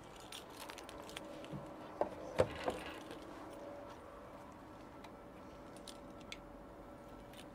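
A few faint clicks and knocks about two seconds in, the loudest near two and a half seconds, as the charging cable's plug is hung back in its holder on the DC charging post. Light ticks follow as the truck's charging-socket flap is handled, over a faint steady hum.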